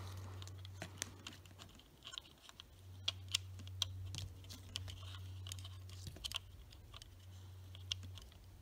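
Faint, scattered small clicks and taps of fingers working a black plastic LED blinker housing while pushing crimped spade connectors onto the pins of its socket, over a low steady hum.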